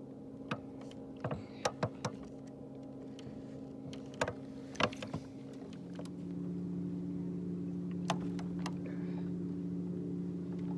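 Steady hum of a small electric motor, changing and growing louder about six seconds in, with scattered sharp clicks and taps during the first half.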